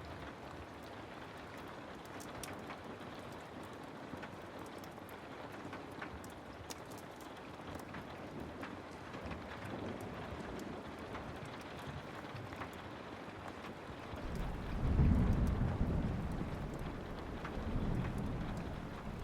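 Steady rain with scattered sharp little ticks, and a low rumble of distant thunder that rolls in about three-quarters of the way through, swells, and swells again near the end.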